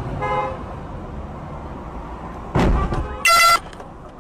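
Car horn honking: a short toot a fraction of a second in, then a louder honk about three seconds in, just after a loud thump, over steady road noise.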